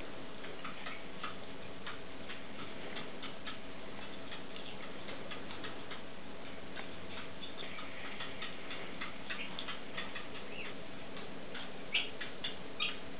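Stone marten pup suckling at a bottle teat, making quick, irregular clicking and smacking sounds, with a few louder clicks near the end.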